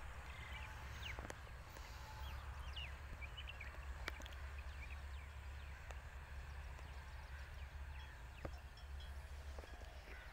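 Outdoor field ambience: a steady low wind rumble on the microphone, small birds chirping now and then, mostly in the first few seconds, and a few faint clicks.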